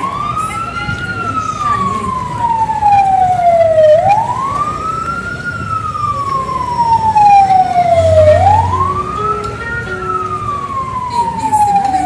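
A siren wailing in slow cycles: each cycle rises quickly, then falls slowly over about three seconds, repeating about every four seconds.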